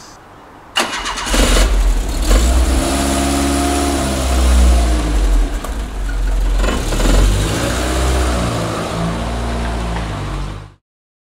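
Opel Kadett's engine starting about a second in, then revving and running with a deep rumble as the car pulls away, the pitch rising and falling with the throttle. The sound cuts off suddenly near the end.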